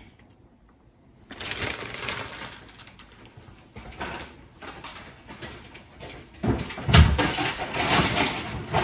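Plastic zip-top bag crinkling and kitchen handling clatter, with a heavy thump about seven seconds in.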